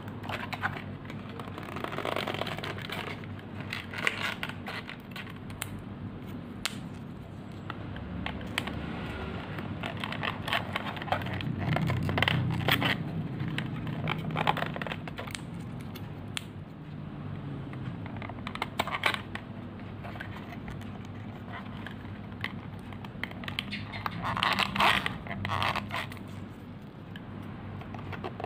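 Cardboard 3D puzzle pieces handled up close: scraping and rubbing against each other, with small clicks as tabs are pushed into slots, in irregular bursts.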